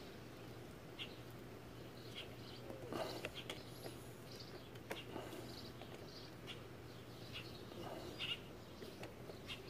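Faint, scattered bird chirps, with a few light clicks now and then.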